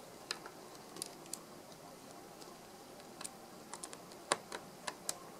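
Light, irregular clicks and taps of small screws and a screwdriver being worked on a laptop's screen assembly, about a dozen ticks, bunched more closely in the second half.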